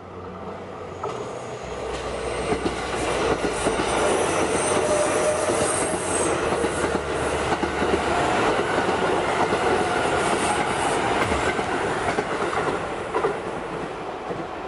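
Electric commuter train approaching and passing close by. The rumble of its wheels on the rails builds over the first few seconds, with clicks as the wheels cross rail joints, then eases off near the end.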